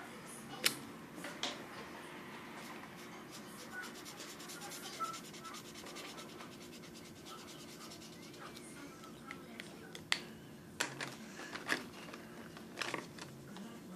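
Colored pencil scratching on paper, with a few sharp taps and knocks, most of them in the last few seconds.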